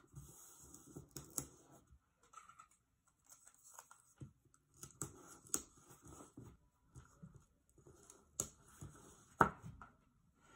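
Hands handling pattern paper and pressing down strips of tape: faint paper rustling with scattered taps and clicks, the sharpest about nine seconds in.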